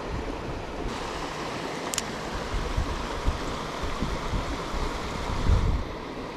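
Steady rush of creek water spilling over a spillway, with a short click about two seconds in and a low thump near the end.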